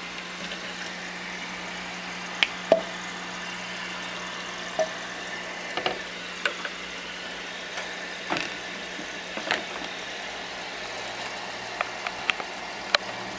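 A steady low hum, with sharp clicks and knocks at irregular intervals over it.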